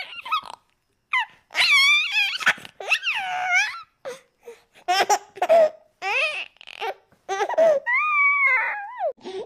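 Cartoon baby girl voice sound effects: a string of short high-pitched giggles, whimpers and babbles, one after another with brief gaps. Near the end comes a longer held cry that slides down in pitch.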